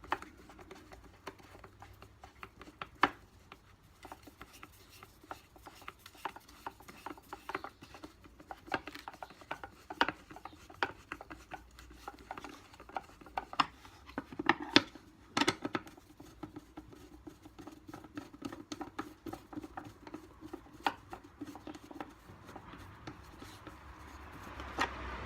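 Hands handling and fitting the parts of a Henry vacuum cleaner's head during reassembly: scattered small clicks and taps with rubbing between them, and a few sharper knocks around the middle.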